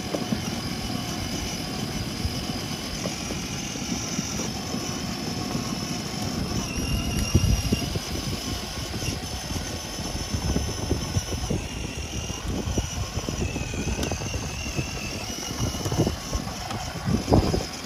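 Electric ride-on toy Jeep running: a steady rumble of hard plastic wheels on asphalt under a faint motor whine, with a few thumps, the loudest about seven seconds in and near the end.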